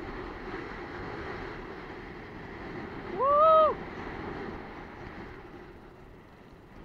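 Wind and water rushing over an action camera's microphone while a kitesurfer rides through choppy sea. About three seconds in, one loud, short wordless vocal call rises, holds and falls in pitch.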